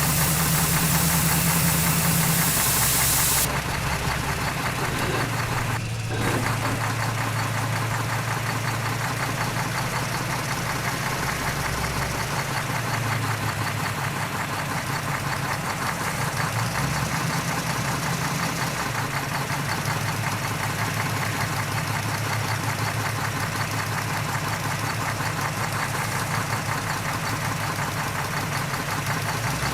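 Diesel engine of heavy earthmoving machinery running near idle, its pitch shifting a few times as the throttle changes. A loud hiss sits over it at first and stops about three and a half seconds in.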